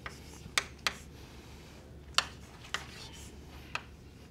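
Chalk writing on a blackboard: about five sharp taps and clicks of the chalk hitting the board at irregular intervals, with faint scratching between them.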